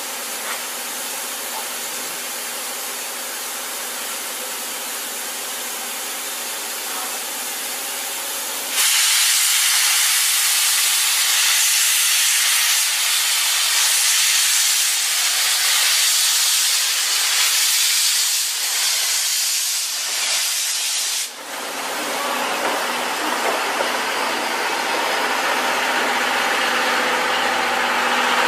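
JNR Class C61 steam locomotive venting steam: a steady hiss that turns much louder about nine seconds in, cuts off suddenly about 21 seconds in, and gives way to a lighter hiss.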